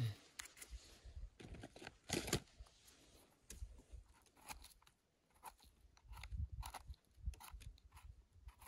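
Irregular, fairly quiet crunching and crackling as a knife cuts through the firm stems of freshly picked wild mushrooms, with the loudest crunches at the very start and about two seconds in.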